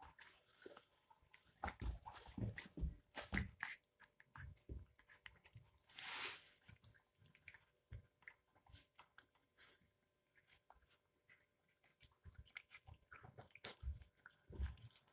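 Young puppies suckling at a milk bottle's rubber nipple: faint, irregular wet clicks and smacks of mouths working on the teat. A short breathy noise, about half a second long, comes about six seconds in.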